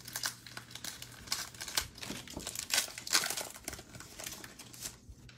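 Foil wrappers of Panini Mosaic trading-card packs crinkling and crackling irregularly as they are handled and torn open by hand, thinning out near the end.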